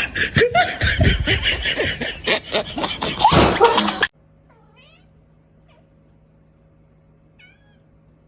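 Cat meowing several times over a loud, noisy background; the sound cuts off suddenly about four seconds in. After that there is only a faint steady hum and a couple of faint high chirps.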